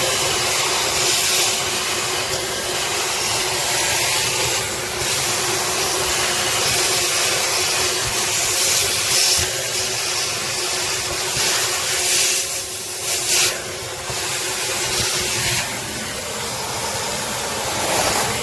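Nilfisk Multi II wet/dry vacuum cleaner running: a steady rush of air with a motor whine, which drops away about fifteen seconds in while the air hiss carries on.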